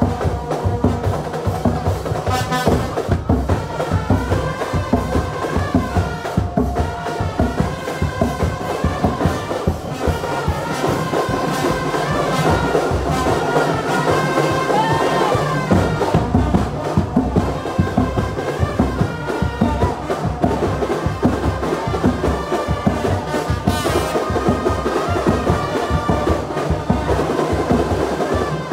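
Carnival marching band playing live: brass horns, trumpets among them, carry a melody over a steady, driving beat of drums and percussion.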